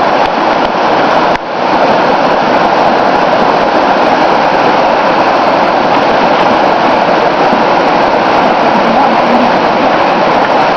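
Waterfall: loud, steady rush of falling water, dipping briefly about a second and a half in.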